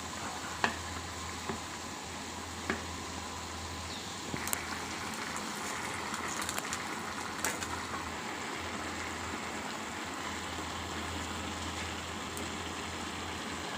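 Food cooking in a pan: a steady sizzle over a low hum, with a few sharp clicks of a utensil.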